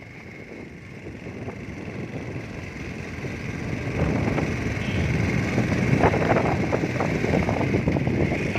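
Motorcycle engine running under way, with wind buffeting the microphone, growing louder over the first half and then holding steady.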